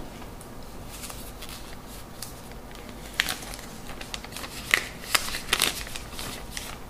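Handling of the iPod Touch packaging: the box lid is lifted off and its cardboard and plastic parts rustle, click and scrape. The sharpest clicks come as a cluster of several between about three and six seconds in.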